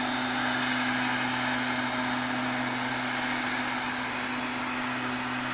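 A steady, unchanging low hum over a constant hiss, like a machine running without a break.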